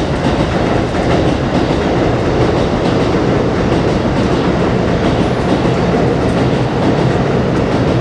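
Train passing on the elevated track directly above the ceiling, a loud, steady rumble heard from the room beneath it.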